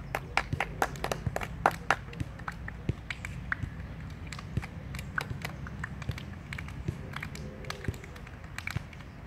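Scattered hand claps and hand slaps, thick in the first two seconds and sparser after, over a steady low background rumble.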